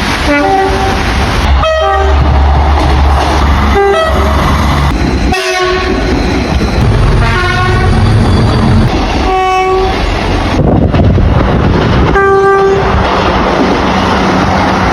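Train horn sounding a series of short blasts, roughly every two seconds, over the continuous rumble and wheel noise of a passing train.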